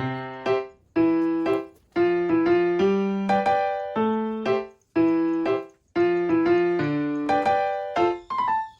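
Background music played on a piano-like keyboard: short phrases of struck notes and chords that ring and fade, with brief pauses between phrases.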